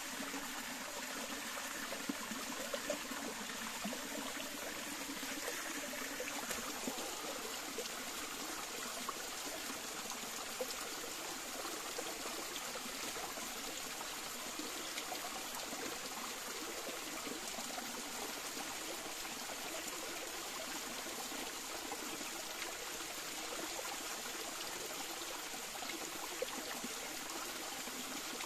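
Shallow rocky stream running, water trickling and splashing over stones at a small cascade in a steady rush, with a few faint ticks.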